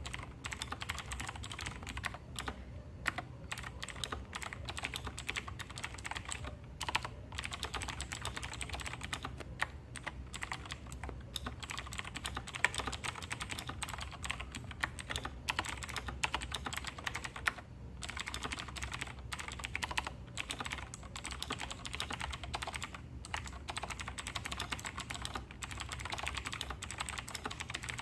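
Fast continuous typing on a Razer BlackWidow Tournament Edition Chroma V2 mechanical keyboard with clicky Razer Green switches: a dense stream of sharp key clicks with a few brief pauses.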